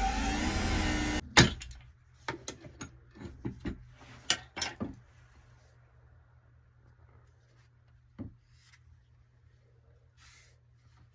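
An electric workshop motor whirring with a shifting pitch, cut off abruptly about a second in. It is followed by a few seconds of scattered sharp knocks and clatters of wood and tools, then faint room tone with one more knock near the end.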